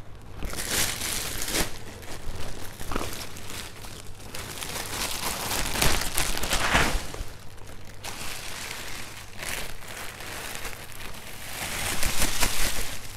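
Clear plastic bags crinkling and rustling as sneakers are slid into and pulled out of them, in uneven stretches, loudest in the middle and again near the end.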